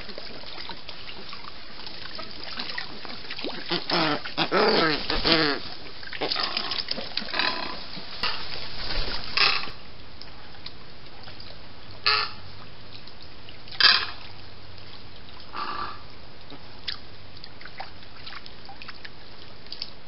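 A flock of white ibises calling: a burst of overlapping calls a few seconds in, then short single calls every couple of seconds, over a steady hiss.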